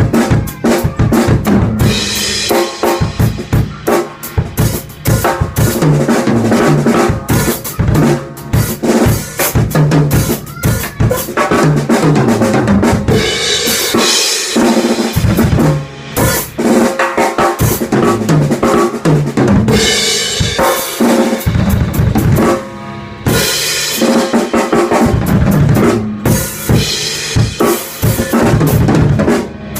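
Acoustic drum kit played continuously and loudly: dense bass drum and snare hits with stretches of ringing cymbal crashes.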